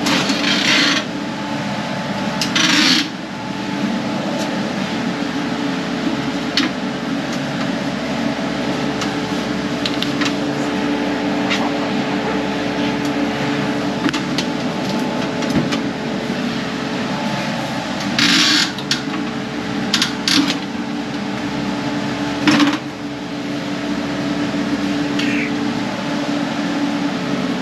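Steady machinery hum with several short scrapes and clunks of sheet metal and parts being handled, once near the start and in a cluster about two-thirds of the way through, as the condensing unit of a reach-in refrigerator is worked loose and slid out.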